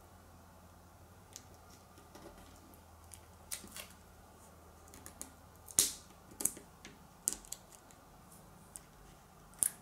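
Fingertips and nails pressing and rubbing vinyl onto an acrylic keychain blank: scattered light clicks and taps, the loudest about six seconds in and again just before the end.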